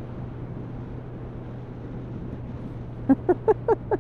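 Steady low drone of a motorcycle cruising at an even speed, with wind and road noise. A voice speaks a few short words near the end, louder than the drone.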